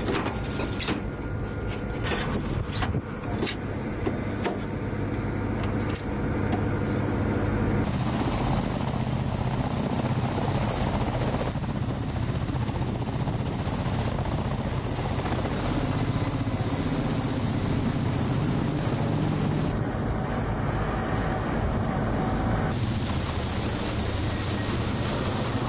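Kamov Ka-52 attack helicopter's turboshaft engines and coaxial rotors running, a steady drone with a constant pitched tone, the sound changing abruptly several times between cut-together shots. Several sharp clicks or knocks in the first six seconds.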